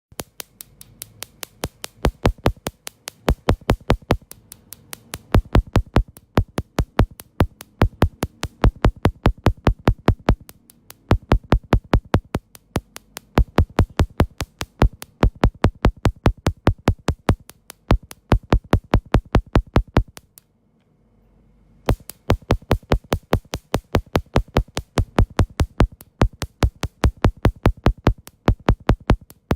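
Electronic background music with a fast, steady drum-machine beat and synthesizer, which drops out for about a second and a half a little past two-thirds of the way through.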